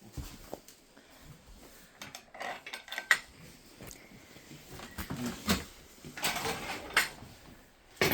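Scattered light clinks and knocks with rustling between them, and a louder knock near the end.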